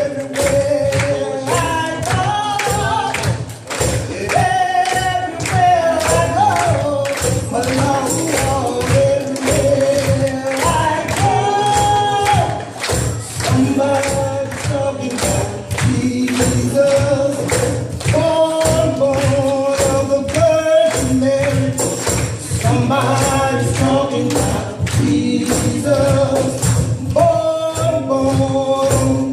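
Upbeat gospel song: voices singing over a band with a steady beat and tambourine.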